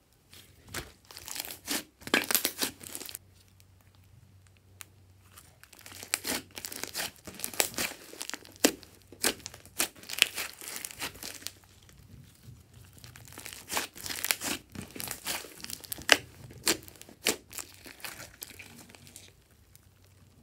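Hands squeezing and stretching a large mass of glossy slime: sticky clicks, crackles and pops as trapped air squeezes out. They come in spells of a few seconds with quieter pauses between.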